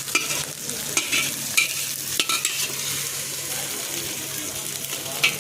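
Chopped ginger and garlic sizzling steadily in hot oil, stirred in the pan, with a utensil clicking and scraping against the pan about five times.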